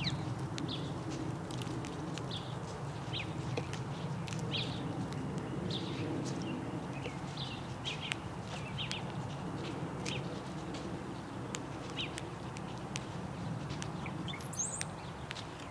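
House sparrows chirping, short scattered cheeps with a few sharp ticks, over a steady low background rumble.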